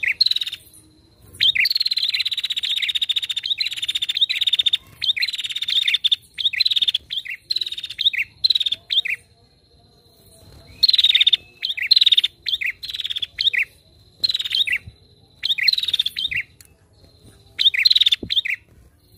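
Female prinia (prenjak) calling in rapid bursts of repeated sharp chirps, each burst one to two seconds long with short pauses between. A faint steady high tone runs beneath.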